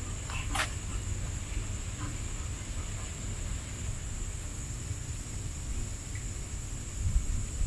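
Insects buzzing steadily in one high, even band over a low rumble, with a single sharp click about half a second in.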